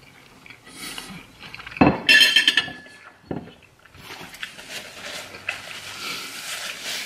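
A metal fork clinks down against a plate about two seconds in, with a short ringing clatter. Over the last few seconds a paper napkin rustles as it wipes the mouth.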